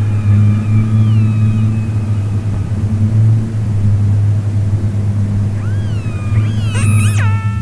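Electronic soundscape: a steady low drone under sliding pitched tones that hold and fade out over the first two seconds. About two seconds before the end, new tones curve up and down, and one sweeps up high and falls away into a held chord.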